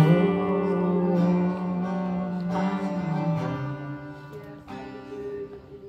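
Slow worship music: acoustic guitar strummed every couple of seconds under long held notes, fading a little toward the end.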